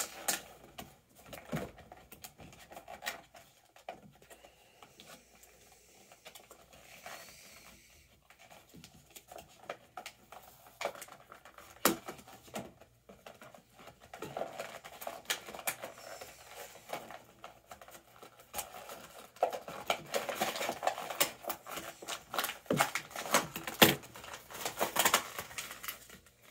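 Cardboard and plastic toy packaging being pried open and handled by hand: scattered clicks, scratches and rustling that grow denser and louder over the last third.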